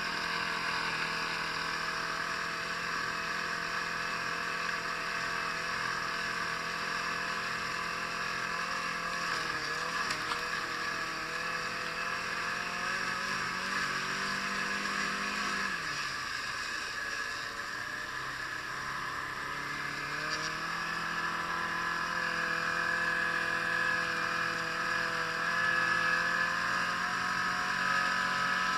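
Yamaha Apex RTX snowmobile's four-stroke engine running at a steady cruise, easing off about halfway through and picking back up a few seconds later.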